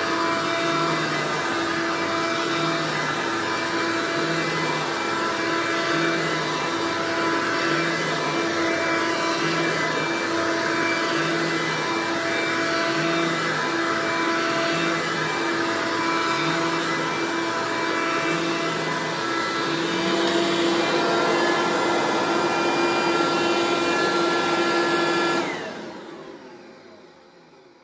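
Eureka Bravo upright vacuum cleaner running on carpet, its low hum swelling and falling about once a second as it is pushed back and forth. About twenty-five seconds in it is switched off and its motor winds down.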